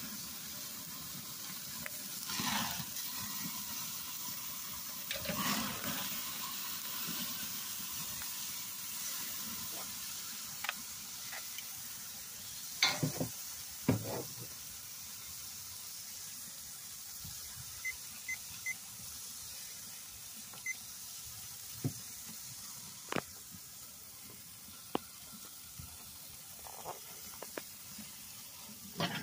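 Steaks sizzling on the grate of a charcoal kettle grill over flaring coals: a steady hiss broken by scattered sharp pops, two louder ones about halfway through.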